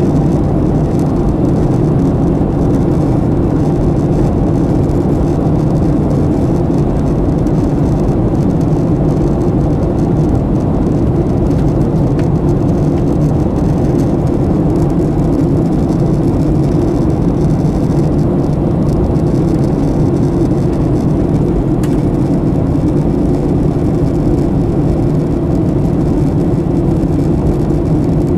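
Steady low drone of a running engine, its pitch and loudness unchanging throughout.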